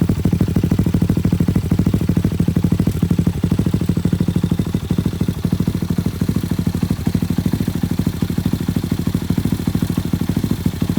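Chinese Honda Monkey replica's single-cylinder four-stroke engine idling steadily through an Akrapovic-style aftermarket silencer with its inner baffle fitted, a low, even exhaust pulse. The owner notes a slight exhaust leak at the silencer and the mid-pipe joint.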